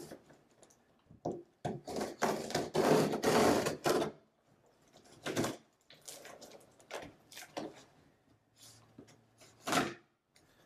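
Box and packaging being handled: a burst of rustling and scraping from about two to four seconds in, then shorter rustles and two sharp knocks.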